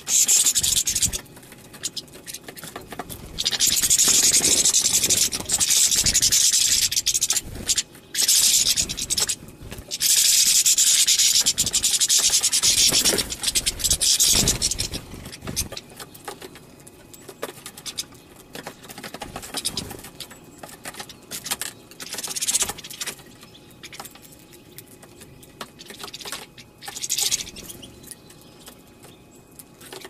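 A flock of European goldfinches twittering at a seed feeder: long bouts of dense, high chattering through the first half, then shorter, scattered bursts.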